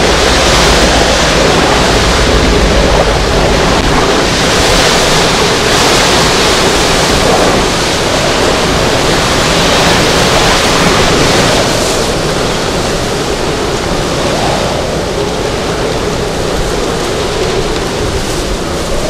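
Hurricane wind gusting with driving rain, a loud, steady rush of noise that eases a little in the last third.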